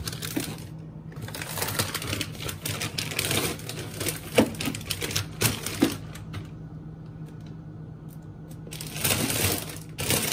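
Grocery items and their packaging being handled and put away: quick clicks, knocks and rustling in clusters, with a quieter stretch about two-thirds through and another burst of rustling near the end. A steady low hum runs underneath.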